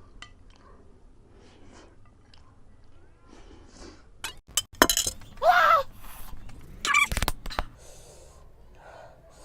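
Clinks and a knock of utensils against a dish, with two short wordless vocal sounds from the eater in the second half.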